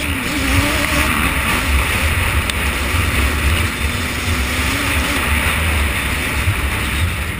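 Racing ATV engine running hard up a grassy climb, its pitch wavering and dipping slightly about five seconds in, under heavy wind buffeting on the helmet-camera microphone.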